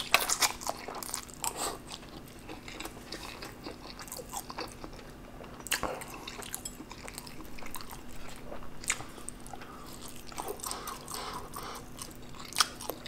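A person chewing a mouthful of spicy black bean instant noodles (jjajangmyeon) close to the microphone, with irregular wet smacking clicks from the mouth.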